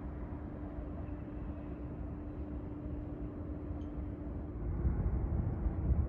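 Wind buffeting the microphone as a low rumble, gustier in the last second. A steady engine hum runs underneath and stops about four and a half seconds in.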